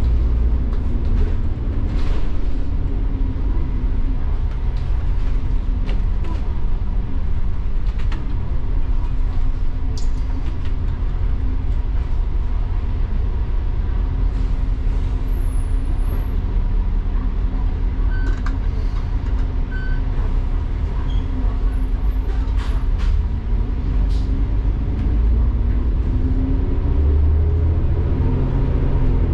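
Double-decker bus heard from the upper deck: the diesel engine running with a steady low rumble and road noise, and small rattles and clicks from the body. Over the last few seconds the engine note rises as the bus accelerates.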